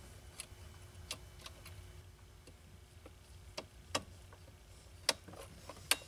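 Scattered small plastic clicks and taps as a replacement park detect switch is worked and snapped into its plastic housing on the gear shifter; the sharpest clicks come about four and five seconds in and just before the end.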